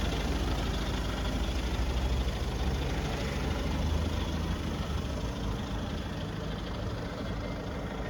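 A vehicle engine idling with a steady low rumble, easing slightly in the second half.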